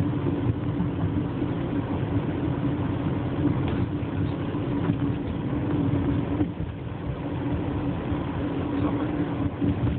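Steady engine and road noise of a moving car, heard from inside the cabin: a low, even rumble with a constant hum.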